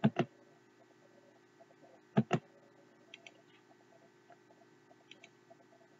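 Two pairs of sharp clicks, one right at the start and one about two seconds in, with a few fainter clicks later: a computer mouse button being clicked, over a faint steady hum.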